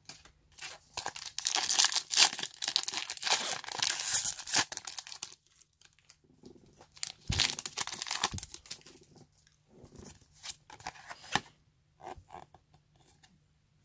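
Plastic foil wrapper of a Pokémon booster pack crinkling and being torn open, in several runs of ripping and rustling, with lighter crinkles and soft clicks as the cards are handled.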